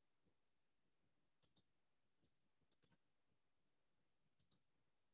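Faint computer mouse clicks: three short clicks spaced a second or more apart, each a quick pair of ticks.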